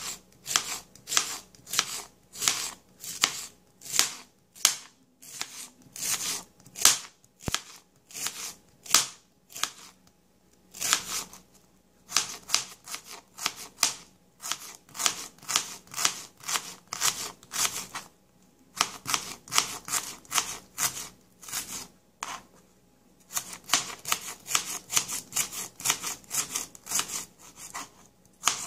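Knife slicing a shallot on a plastic cutting board: a steady run of quick, crisp taps as the blade meets the board, broken by a few short pauses.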